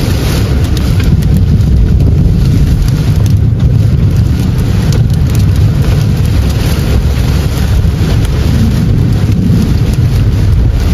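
Inside a car's cabin while driving through a heavy rainstorm: a loud, steady low rumble of the car on the wet road, with rain hitting the windscreen and body.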